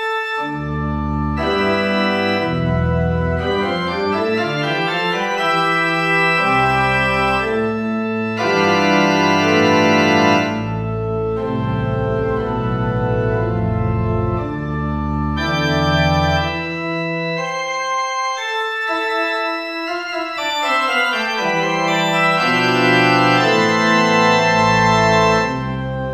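Organ playing a piece: held chords that change every second or so over a low bass line, the bass falling silent for a moment past the middle before coming back in.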